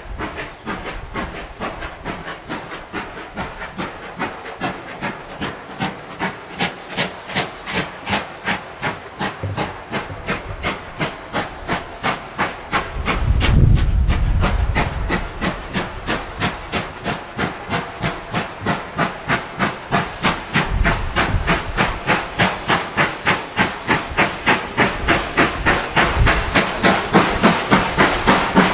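GWR Hall class two-cylinder 4-6-0 steam locomotive pulling away with a train, its chimney exhaust beats sharp and regular, quickening slightly and growing louder as it nears, with echoes off the surroundings. A brief low rumble comes about 13 seconds in.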